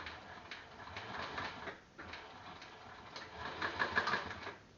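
Industrial sewing machine stitching Velcro onto heavy vinyl. It stops right at the start, then comes quieter clicking and handling, with a brief run of stitches about three and a half seconds in.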